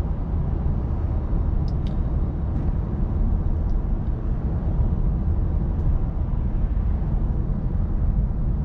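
Steady low road and tyre rumble with engine hum inside the cabin of a 2024 Cadillac CT5 sedan cruising along in a high gear.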